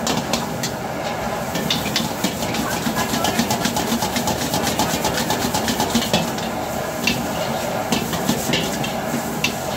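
A metal ladle clacking and scraping rapidly against a black wok as chowmein noodles and shredded cabbage are stir-fried and tossed, over the steady hiss of a strong gas burner and sizzling food. The clacks come thickest and fastest through the middle.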